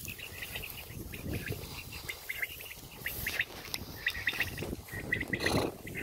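Small birds chirping with many short, repeated high calls, over the rumble of a handheld phone moving through grass. A brief louder rustle comes about five and a half seconds in.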